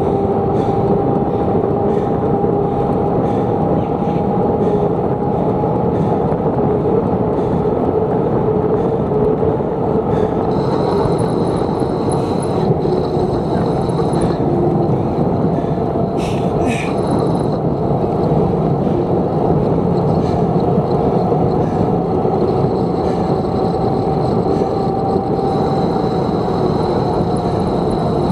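Steady rush of wind and road noise from a bicycle ride, with a faint hum that slowly wanders in pitch. A faint high trilling comes in twice, and there are two sharp clicks about two-thirds of the way through.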